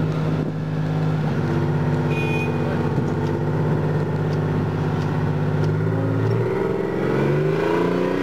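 Tracked armoured personnel carrier's engine running steadily, then revving up near the end as the vehicle pulls away.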